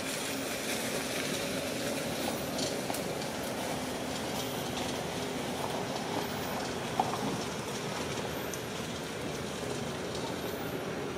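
Steady outdoor background noise with a faint low hum, like distant traffic. A faint high chirp repeats about every two seconds, and there is one brief tick about seven seconds in.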